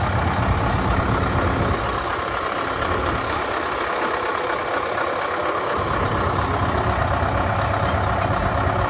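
A truck engine idling steadily, with a low rumble underneath that drops away for a few seconds in the middle and then comes back.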